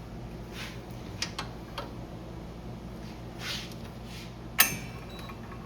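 Handling noises on a workbench: a few light clicks and brief rustles, then one sharp knock about four and a half seconds in.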